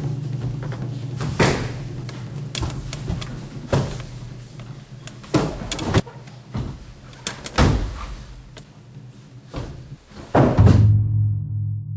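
Repeated thuds of a body slamming onto tatami mats as an aikido partner is thrown and takes breakfalls, about eight falls spread out, over a steady low hum. Near the end a deep, sustained musical tone comes in.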